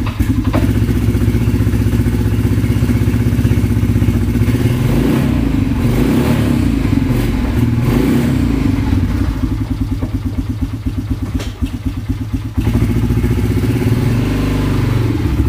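Honda ATV engine running at idle in neutral, its note wavering and rising a little in the middle.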